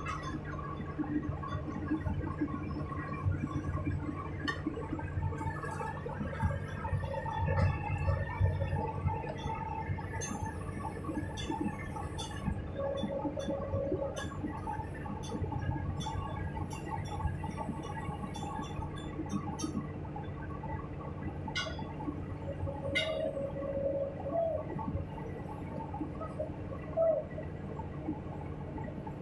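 Excavator's diesel engine running steadily while it lifts a barge pulley block on a chain, with scattered light metallic clinks and a few short squeals.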